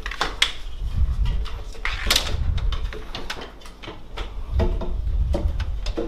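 Aquarium light-mounting rail being handled and fitted onto the tank's sides: a scatter of sharp clicks and knocks as its arms meet the glass and cabinet, with low handling thuds in between.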